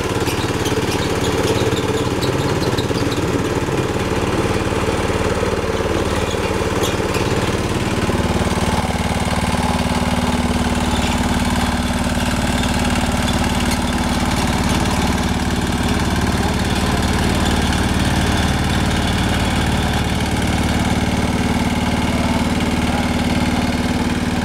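Small single-cylinder horizontal engine running steadily, coupled to and driving a rice huller. Its note shifts about eight seconds in, and a few light ticks sound in the first several seconds.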